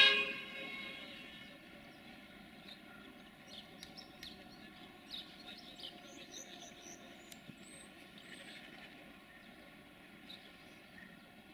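A loud horn-like tone cuts in just before the start and dies away within about a second. Then quiet outdoor background with faint bird chirps a few seconds in.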